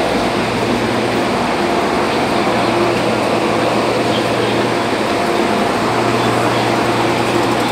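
Steady hum and hiss of an MTR subway platform, with a train standing at the platform screen doors. A low drone weakens for a few seconds in the middle, then returns.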